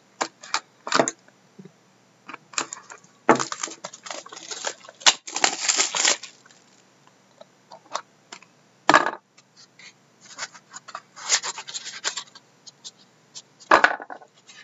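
Plastic shrink-wrap being slit with a hobby knife and torn off a trading-card box, crinkling in bursts, followed by the cardboard box being slid out of its sleeve and its lid lifted, with scrapes and light taps.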